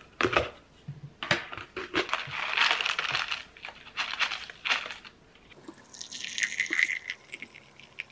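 Clicks of a tea canister's clip lid being opened, then a foil tea pouch crinkling as it is handled, and dry loose tea leaves pattering into a cup as they are shaken out.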